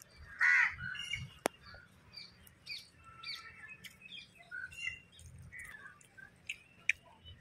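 Small birds chirping and calling on and off, with one louder harsh note about half a second in and sharp clicks near a second and a half and near the end.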